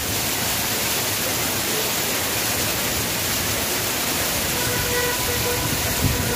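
Torrential monsoon rain pouring down in a steady, even hiss onto the street and the awning. Faint steady tones sound just before the end, along with a brief low bump.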